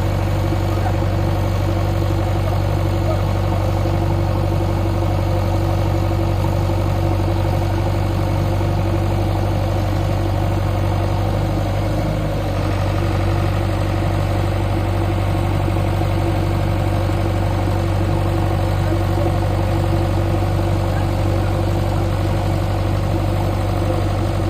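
JCB 3DX backhoe loader's diesel engine idling steadily, a constant low drone with a brief slight dip about halfway through.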